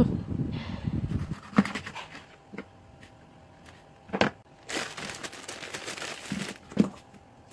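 A few sharp knocks of a knife chopping through fish onto a plastic cutting board, and partway through a plastic bag rustling and crinkling as it is handled.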